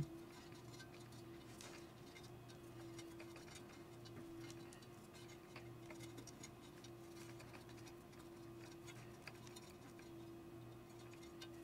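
Faint, irregular small ticks and scratches of fingers picking old dried glue off the metal rim of an 8-inch woofer's frame, over a steady low hum.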